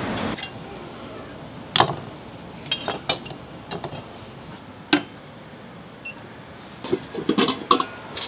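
Knives, a honing steel and stainless steel bowls being set down on plastic cutting boards and a table: a string of separate sharp clacks and clinks a second or so apart, with a quick run of clinks near the end.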